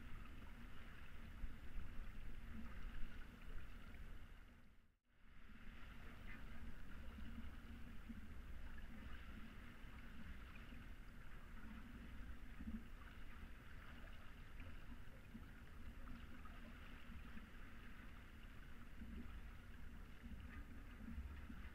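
Water rushing and splashing along the hull of a Hanse 355 sailing yacht under sail, with wind rumbling on the microphone. The sound fades almost to nothing and comes back about five seconds in.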